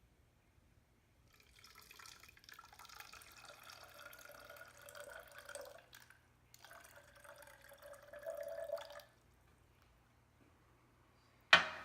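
Water running into a bottle to fill it to the marked line, in two pours with a short break between. A sharp knock near the end.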